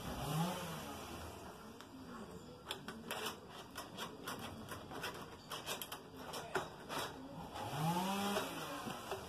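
A pigeon cooing, one low coo near the start and another about eight seconds in, while a hand working at a wire birdcage sets off a run of sharp metallic clicks and rattles in between.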